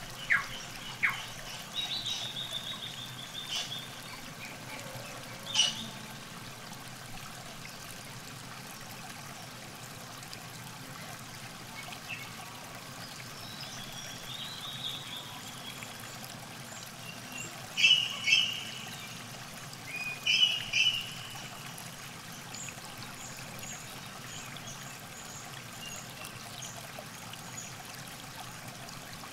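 River water trickling steadily along the bank, with small birds calling over it. A few sharp notes and a short trill come in the first seconds, loud quick chirps a little past halfway, and a run of faint high notes near the end.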